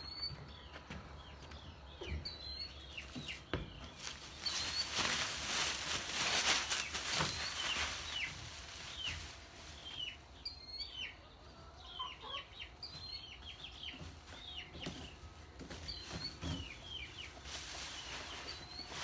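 Chickens calling with short, high clucks and peeps repeated throughout. Under them come a few knocks and a louder stretch of rustling from about four to eight seconds in, as cardboard boxes and plastic wrap are handled.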